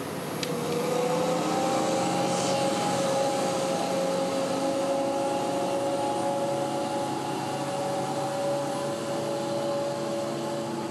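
An aircraft tug towing an Airbus Beluga transport plane: a steady machine whine at two pitches over an even rush of noise, setting in about half a second in.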